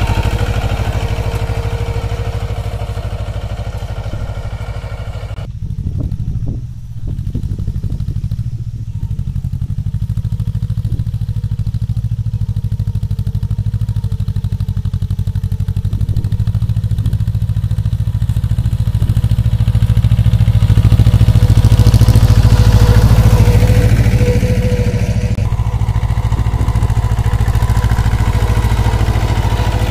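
Mahindra Jivo 245 compact tractor's two-cylinder diesel engine running steadily under load as it pulls a plough through the soil. It dips briefly a little after five seconds in and is loudest about two-thirds of the way through.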